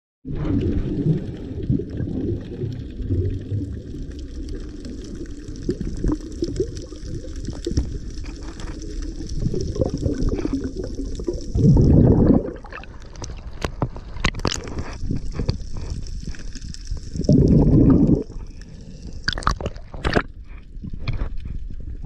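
Underwater recording with a steady low rumble of moving water, broken by two loud gurgling bursts of scuba exhaust bubbles, about a second each, near the middle and again later. Sharp clicks and knocks are scattered through the second half.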